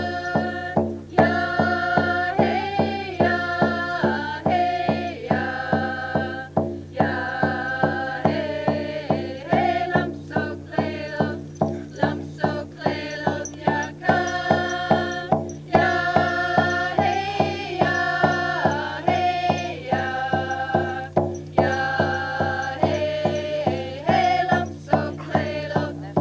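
A group of First Nations singers singing a traditional song in unison over a steady, even beat on a frame hand drum, about two to three strokes a second. The voices sing in phrases with short breaks while the drum keeps going.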